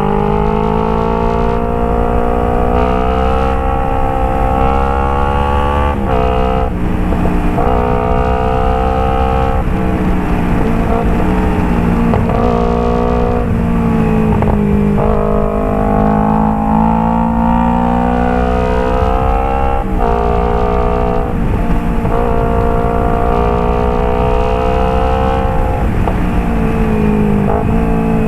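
Kawasaki Ninja 250 FI parallel-twin engine through a Phoenix aftermarket exhaust, its note climbing steadily and then dropping back sharply about five times. The sound is a bit crackly from a worn microphone.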